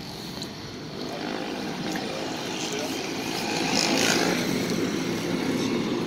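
A motor vehicle's engine running, a steady rumble with a low hum that swells gradually louder over the first few seconds and then eases slightly.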